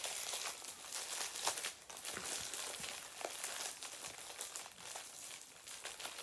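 Plastic packaging crinkling with small irregular clicks and crackles as a vinyl figure is worked out of a tight Funko Soda can.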